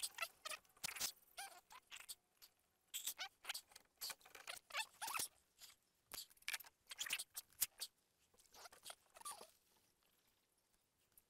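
Gear being handled in a fibreglass dinghy: an aluminium pole knocking and rubbing against a wooden holder and the boat's hull, giving a quick run of light knocks, scrapes and short squeaks that die away near the end.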